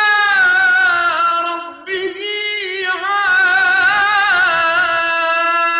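A man singing an Arabic religious nasheed without instruments, drawing out each word in long held notes with wavering ornaments, and taking a brief breath about two seconds in.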